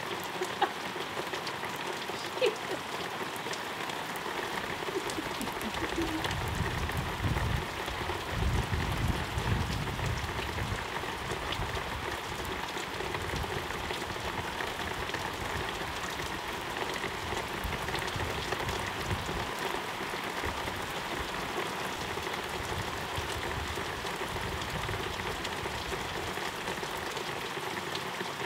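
Steady rain falling, with a few sharp drop ticks near the start and a low rumble from about six to eleven seconds in.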